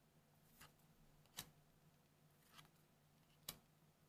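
Near silence with four faint, short clicks of trading cards being handled and swapped from hand to hand.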